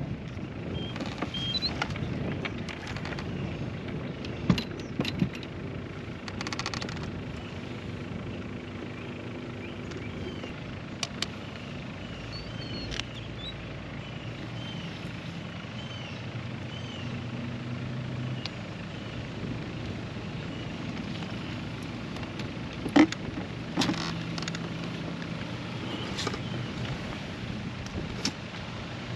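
A steady low motor hum under wind on the microphone, with scattered clicks and rattles of fishing tackle being handled and small birds chirping.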